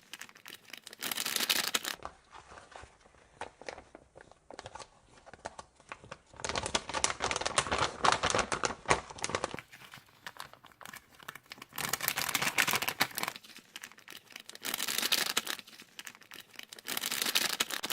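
Packaging being torn open and crinkled by hand, in several bursts of rustling with short pauses between.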